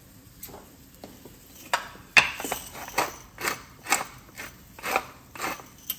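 Hand-twisted pepper mill grinding peppercorns into a bowl, a run of short grinding strokes about two a second that starts a little under two seconds in.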